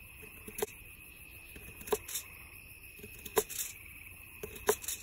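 A knife chopping vegetables, a handful of irregular sharp knocks. Crickets chirp steadily behind.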